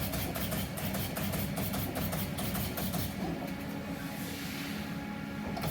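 Amada CNC turret punch press running, its punch striking the sheet metal in a rapid series of sharp clicks over a steady machine hum. The strikes thin out for about two seconds and start again near the end.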